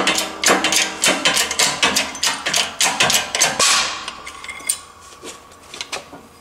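Rapid metal-on-metal banging, about three or four ringing blows a second, from a metal bar used as a makeshift hammer on a piston and connecting rod held in a shop press fixture, knocking the heated wrist pin and rod free. After about four seconds the blows thin out into lighter taps.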